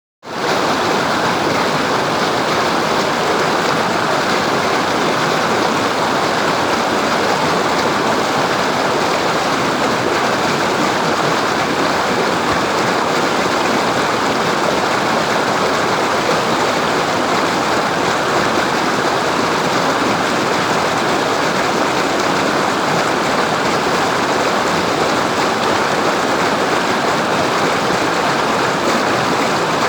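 Waterfall: water falling and rushing in a steady roar, fading in within the first half second.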